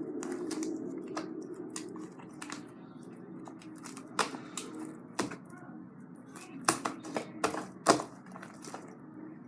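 Slime being squeezed and worked by hand, giving irregular sharp clicks and pops from trapped air, with a cluster of louder pops about seven to eight seconds in, over a steady low hum.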